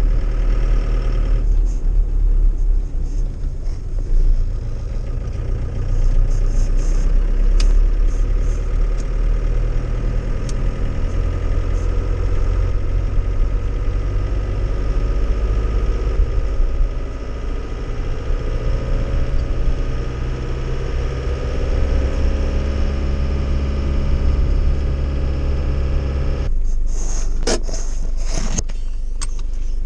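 Cab interior of a 1993 Iveco TurboDaily light truck on the move: its diesel engine runs steadily under load, the pitch slowly rising as it pulls. Near the end the engine note drops back and a cluster of clicks and rattles follows.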